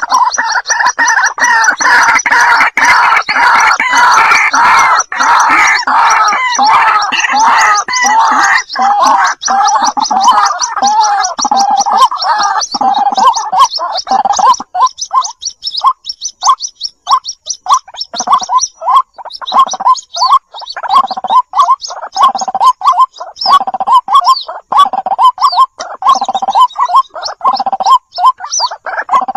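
White-breasted waterhen (ruak-ruak) chicks calling for the hen. A dense, overlapping chorus of rapid calls fills the first half, then thins out about halfway through into separate short calls repeated about twice a second.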